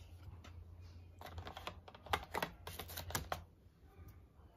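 Quick runs of light clicks and taps from handling a tablet and its small plastic parts, bunched between about one and three and a half seconds in, over a low steady hum.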